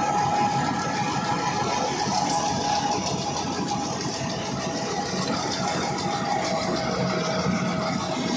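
John Deere tractor engine running while its PTO drives a tractor-drawn straw reaper chopping field stubble into straw: a steady mechanical din with constant whining tones over it.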